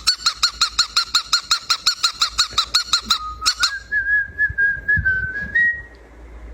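Cockatiel calling: a fast run of repeated chirps, about eight a second, for about three seconds, then a long whistled note that wavers slightly and steps up in pitch near the end.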